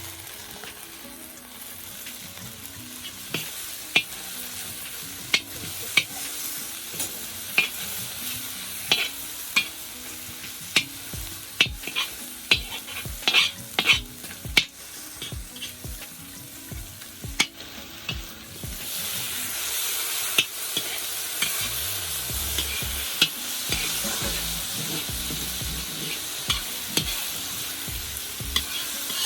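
Food frying and sizzling in a pan, while a utensil repeatedly clinks and scrapes against the pan as it is stirred. The sizzle gets louder about two-thirds of the way through.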